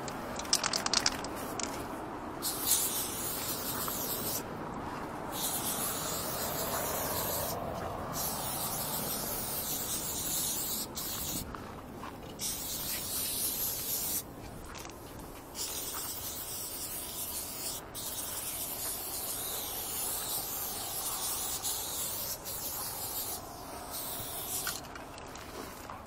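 Aerosol spray-paint can hissing in long bursts with short pauses between them as lines are sprayed onto a corrugated metal wall. A few sharp clicks come about a second in.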